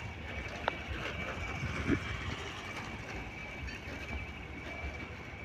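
Steady low rumble of distant machinery and vehicles across a construction site, with a constant thin high whine running through it. A sharp click about two-thirds of a second in and a short low thud near two seconds.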